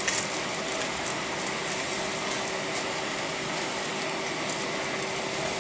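Steady Airbus A320 cabin noise at a window seat: the hum and hiss of its IAE V2527-A5 engines and air conditioning, with a couple of steady tones underneath. A few light clicks and rattles, the loudest just after the start.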